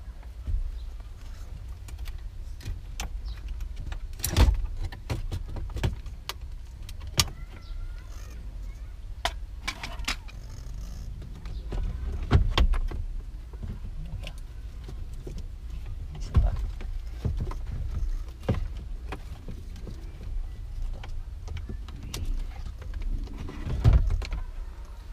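Plastic dashboard parts of a Toyota Corolla EE90 being worked loose and lifted out by hand: irregular clicks, knocks and rattles of the instrument cluster housing and trim, the loudest knocks about four seconds in, about twelve seconds in and near the end, over a steady low rumble.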